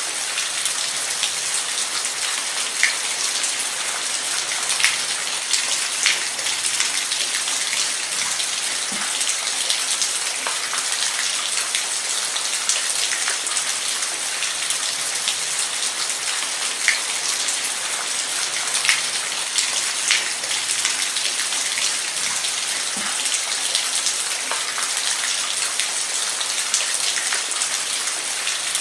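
Steady rain falling, with many separate raindrops ticking on a surface over the even hiss.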